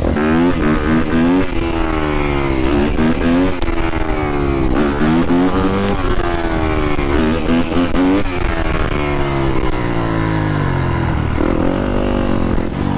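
Yamaha dirt bike engine revving hard, over and over, while riding and wheelieing. Its pitch climbs and drops back about every second or so.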